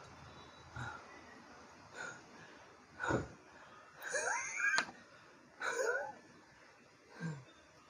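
A person's short gasping, strained vocal sounds, coming in separate breaths with pauses between, some rising and some falling in pitch. There is a sharp knock about three seconds in.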